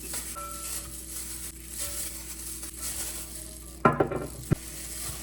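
Food sizzling in a frying pan, with a loud metal clank of a utensil against the pan a little under four seconds in and a short click just after.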